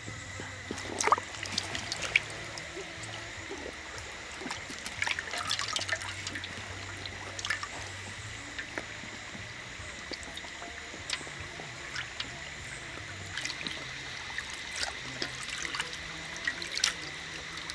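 Water splashing and dripping as a plucked duck carcass is rinsed and rubbed by hand in a basin of water, in small irregular splashes.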